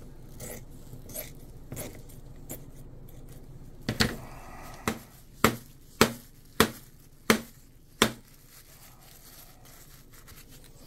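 Heavy-duty serrated scissors snipping through carbon fiber cloth with small, faint cuts. Then, from about halfway, six or so sharp knocks spaced roughly half a second to a second apart as a cardboard tube is handled on the workbench.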